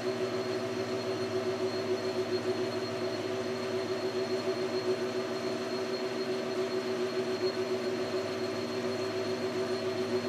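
Precision Matthews metal lathe running steadily with its three-jaw chuck spinning, a constant multi-tone motor and gear hum, while a small carbide boring bar bores out the hole of a steel washer.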